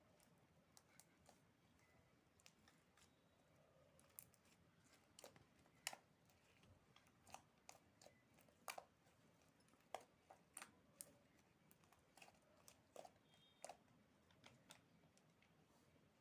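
Slime being handled and squished, giving faint, irregular clicks and pops at uneven intervals.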